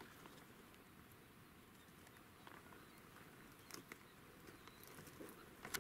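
Near silence: faint outdoor background hiss with a few soft, scattered clicks and ticks, the sharpest one near the end.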